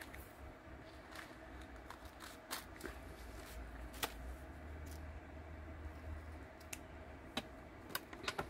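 Scissors snipping a shape out of tissue paper backed with double-sided tape: faint, scattered snips and clicks, then light handling of the cut piece.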